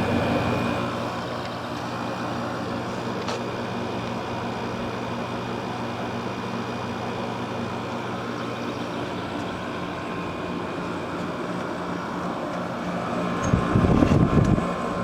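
Everstar window air conditioner with an LG compressor running steadily: the compressor and fan hum, which the owner calls fairly quiet for this kind of unit. A short, louder low rumble comes in near the end.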